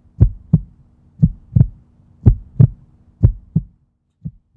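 Heartbeat sound effect: deep lub-dub double thumps about once a second over a faint steady hum, the last beat near the end weaker.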